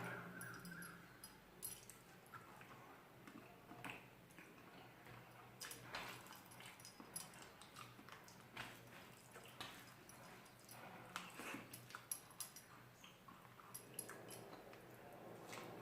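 Faint eating sounds close to the microphone: soft chewing and mouth smacks with scattered small clicks.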